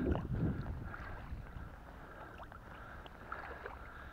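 Kayak being paddled: the paddle blade dipping and dripping in the water, a little louder in the first second, over a low rumble of wind on the microphone.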